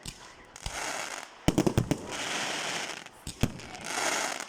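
Aerial fireworks bursting: a quick cluster of sharp bangs a little after a second in, followed by a hissing rush, then another bang and hiss near the end.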